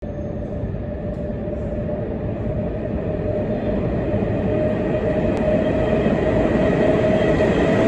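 R62A subway train approaching through the tunnel: a rumble that grows steadily louder, with a steady tone running over it.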